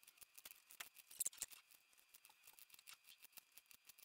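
Hand carving gouge pushed into very hard Vera wood, chipping out small scallops: a string of faint, irregular clicks and snicks as the chips break free, a little louder about a second in.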